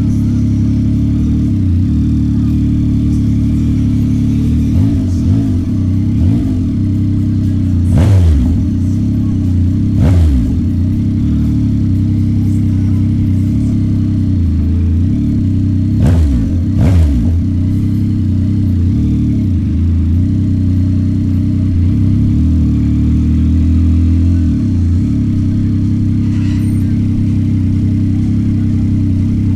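2026 Yamaha MT-09 SP's 890 cc inline-three engine running steadily at low revs, with a few brief rises and falls in revs partway through.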